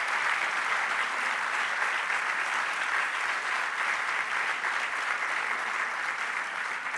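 An audience applauding steadily, tapering off near the end.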